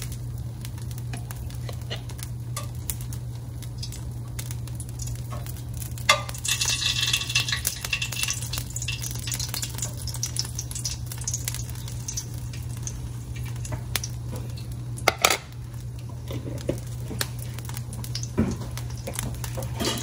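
Spoonfuls of ghee going into a hot wok: a metal spoon clinks against the pan a few times, and the ghee sizzles for a few seconds from about six seconds in. A steady low hum runs underneath.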